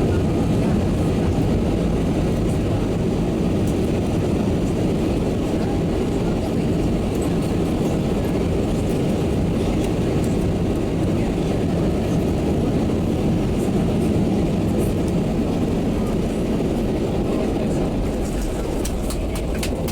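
Steady low rumble inside the cabin of an Airbus A320 airliner, from engine and airframe noise, with light clicking rattles near the end.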